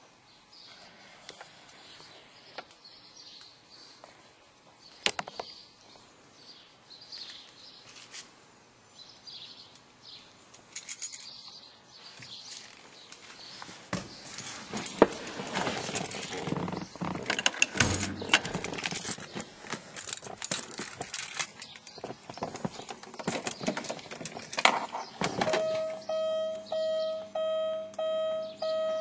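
Keys jangling and clattering as they are handled inside a car. Near the end, a car's warning chime starts, a steady tone beeping about three times a second, as the key goes to the ignition.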